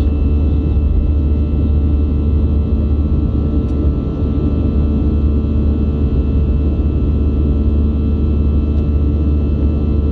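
Steady jet engine noise of an airliner in its climb after takeoff, heard inside the cabin: a loud deep hum with several faint steady whining tones above it.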